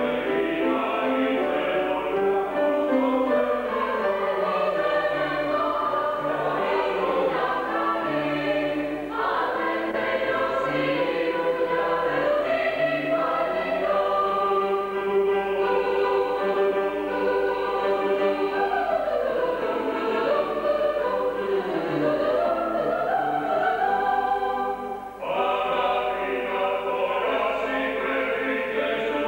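Choral music: many voices singing together in an operatic style, with a short break about 25 seconds in before the choir comes back in.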